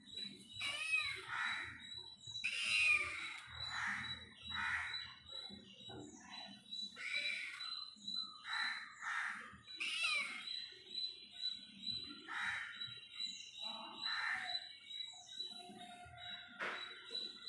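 Repeated short animal calls, roughly one a second, some sliding in pitch, over a faint steady high whine.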